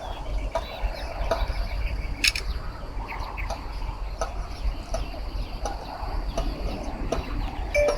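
Birds chirping and calling, short scattered notes coming every fraction of a second, over a low steady rumble.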